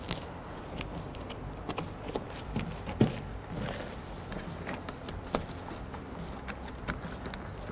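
Gloved hands pressing a door's vapor barrier back onto its butyl tape: scattered light taps, pats and rustling, with one sharper tap about three seconds in.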